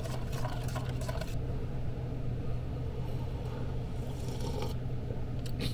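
Camper van's roof ventilation fan running with a steady low hum, with a few light clicks and scrapes of a spoon stirring in a steel mug near the start and just before the end.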